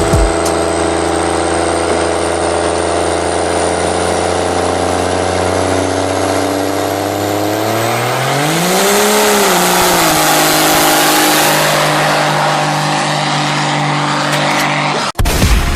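Electronic synthesizer music: a held chord under a slowly rising high sweep, with the pitch bending up and back down about nine seconds in, cutting off abruptly near the end.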